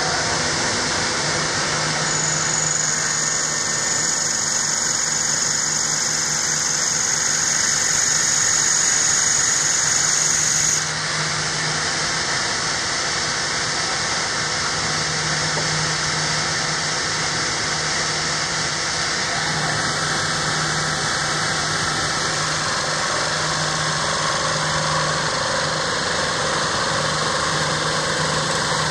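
Hempel CNC wood lathe running, its fixed gouge cutting a spinning wooden spindle with a steady noise of motor and cut. A high steady whine joins about two seconds in and cuts off suddenly about eleven seconds in.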